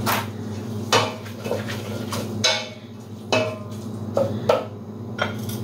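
A spoon knocking and scraping against a glass bowl while a sauce is emptied out of it into a stainless steel pot: a string of irregular clinks with a short ring to them, over a steady low hum.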